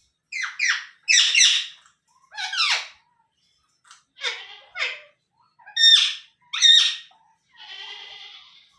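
Indian ringneck parakeet giving a string of loud, harsh squawks, mostly in pairs, followed near the end by a quieter buzzy chatter.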